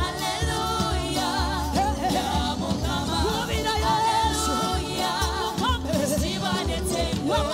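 Gospel song: several voices singing with vibrato over a band with a steady bass line.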